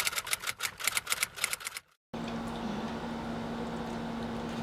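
A fast, even run of sharp clicks, about seven a second, that stops abruptly just under two seconds in. It gives way to the steady hum of an old air conditioner.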